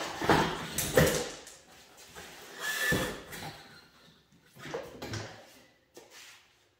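Snowmobile rear suspension skid being worked out of its rubber track and pulled free: the skid rails scrape and knock against the track's inside cogs in several rough bursts, the loudest in the first second, with a short squeak about three seconds in.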